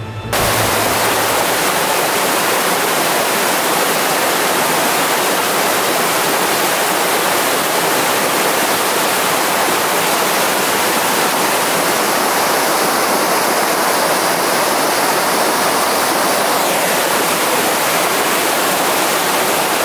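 A reservoir's overflow waterfall, swollen with snowmelt, rushing steadily down a cascade of rocky steps.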